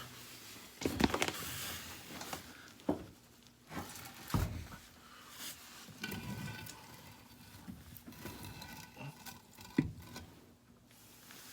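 Washing machine being heaved and shifted by hand: scraping and rattling with a few sharp knocks, about one, three, four and a half and ten seconds in.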